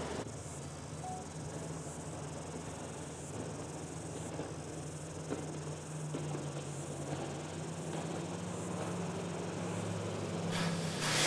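Outdoor ambience of chirping insects over a steady low hum, with a rising rush of noise near the end.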